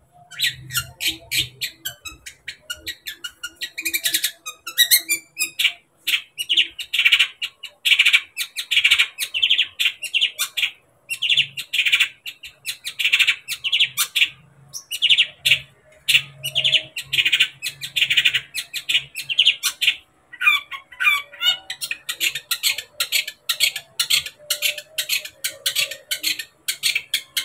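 Long-tailed shrike (cendet) singing in full voice: a fast, almost unbroken chatter of short notes, with quick rising and falling whistled sweeps about four seconds in and again about twenty seconds in, and a few brief pauses. It is the vigorous 'gacor' song that keepers play to rouse other cendets to sing.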